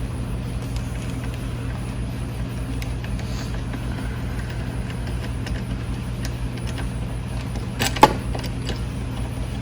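Steady low background hum with a few faint ticks, and one sharp metallic clink about eight seconds in.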